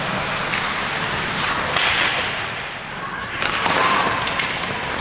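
Ice hockey play: several sharp cracks of sticks on the puck and the puck against the boards, over a hiss of skates scraping the ice that swells about two seconds in and again near the end.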